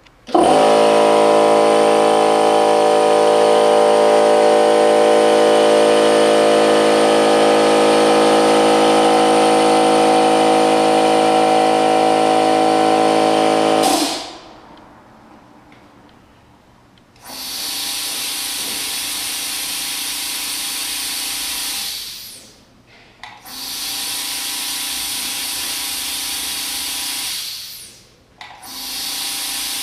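A red twin-tank portable air compressor runs loud with a steady multi-tone drone for about 14 seconds, then is switched off. After a few seconds' pause, a California Air Tools TL tankless compressor with an oil-free dual-piston pump runs in three spells of about five seconds each, started and stopped by its foot pedal. It is plainly quieter than the red unit.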